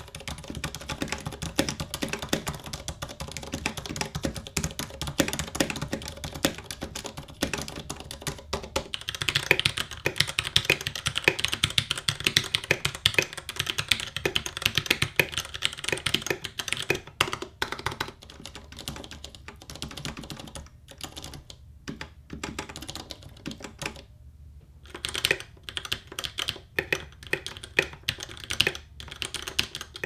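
Fast typing on a Ducky x Varmilo Miya Pro 65% mechanical keyboard with Cherry MX Silver linear switches and Tai Hao keycaps, a dense run of key presses bottoming out. It has a solid sound, with a short pause about three quarters of the way through.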